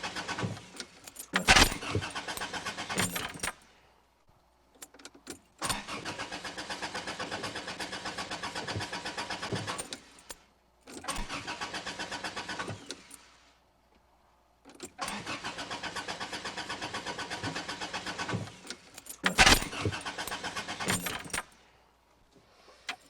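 Car starter cranking the engine in four spells of a few seconds each, with a fast even pulse and short quiet gaps between them; the engine does not catch, so the car will not start. A sharp loud knock sounds about a second and a half in and again near the end.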